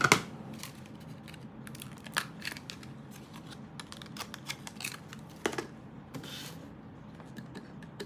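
Small clicks and handling noises of a Core i9-13900K being fitted into the motherboard's CPU socket: a sharp click at the start, a few scattered lighter clicks, and a brief rustle about six seconds in.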